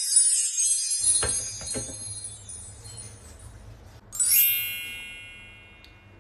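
High tinkling chime music fading away, with a few soft knocks just after a second in; then a single bright chime struck about four seconds in, ringing out and fading.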